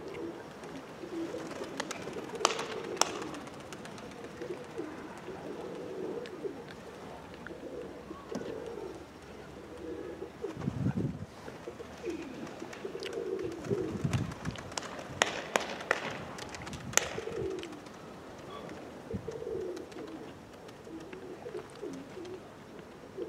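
Domestic pigeons cooing over and over. A few sharp clicks come in twice, and there are a couple of low rumbles near the middle.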